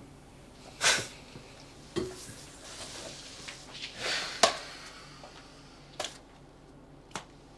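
A handful of sharp knocks and clicks, irregularly spaced, with a short rustle about a second in and a longer rustle around four seconds.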